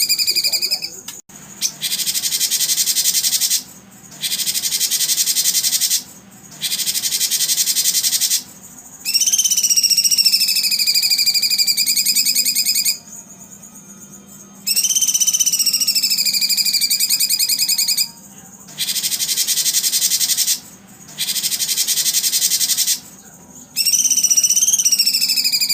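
Recorded calls played for contest songbirds: repeated high, buzzing trilled phrases a few seconds long, several with whistled tones that slide down then up, separated by short pauses.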